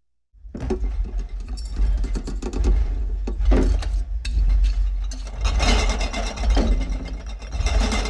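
Monster vocal sound effect: a deep, gritty, sustained growl that starts abruptly about a third of a second in, after silence, and goes on with an uneven, rattly texture.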